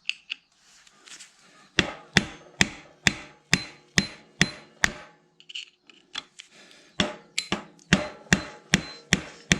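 Hammer blows with a short metallic ring after each, about two a second, driving a screwdriver to turn and tighten the center lock nut on a Honda Gorilla's Chinese-made engine, done without the special lock-nut wrench. About eight blows start some two seconds in, then stop for about two seconds, and the blows start again near the end.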